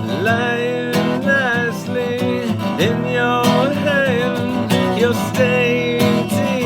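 Acoustic guitar strummed in a steady rhythm, with a voice singing a wavering, drawn-out melody over it.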